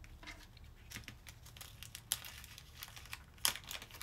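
Small plastic zip-top bag of diamond-painting drills crinkling as it is handled and opened, with scattered light clicks; the sharpest click comes about three and a half seconds in.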